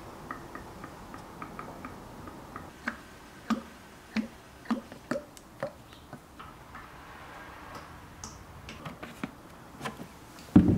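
Motor oil glugging out of a plastic jug into a funnel in a motorcycle engine's oil filler: light ticking at first, then a run of gulps about every half second. A loud knock comes near the end as the jug comes away from the funnel.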